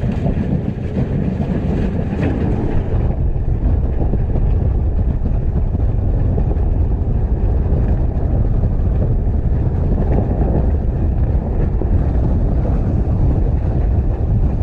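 Gale-force wind buffeting the microphone on a sailboat under sail: a loud, steady low rumble, a little brighter for the first few seconds.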